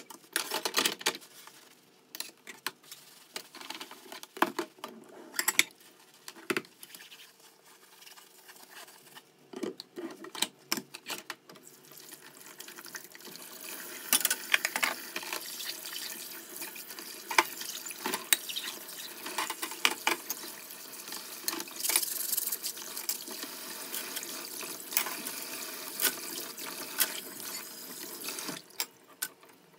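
Crockery clinking as dishes are scrubbed with a sponge in a stainless steel sink. About twelve seconds in, the kitchen tap starts running in a spray onto the dishes as they are rinsed, with plates clinking under the water, until the water cuts off near the end.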